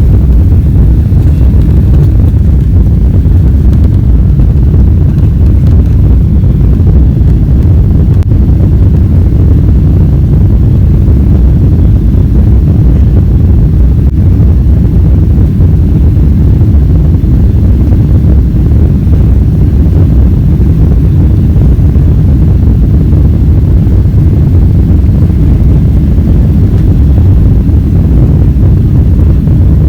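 Loud, steady low rumble of an airliner's jet engines and rushing air, heard from inside the passenger cabin.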